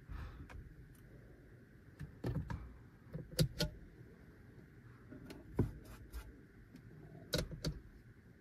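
Sharp plastic clicks and taps as fingers handle the rear-view mirror and press the overhead console buttons of a Geely Xingrui: a handful of clicks, some in quick pairs.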